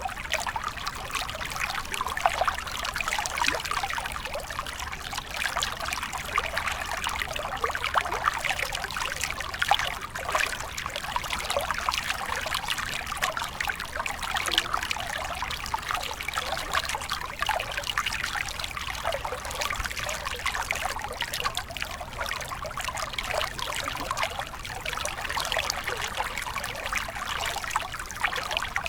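Shallow stream water trickling and splashing steadily over rocks, a continuous bubbling babble.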